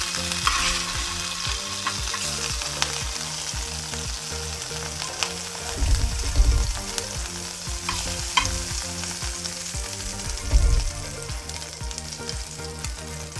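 Half a spoonful of butter sizzling and frothing as it melts in a hot tawa on a low gas flame, a steady hiss with a few light clicks in the middle.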